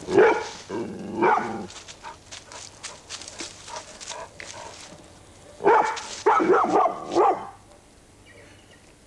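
Young truffle dog barking at an electronic truffle detector, which it is unhappy to see on its truffle ground. A pair of barks opens, and a quicker run of about four barks follows about six seconds in.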